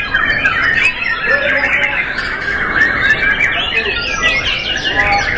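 Several caged white-rumped shamas singing at once in contest, a dense overlapping chorus of rapid whistles, trills and chattering phrases.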